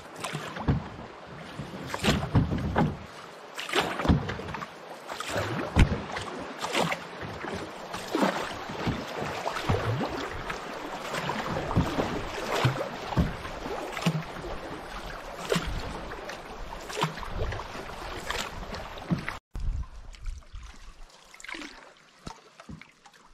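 Canoe paddle strokes in the water, about one a second, each a short splash and pull over a steady wash of water. Fainter near the end.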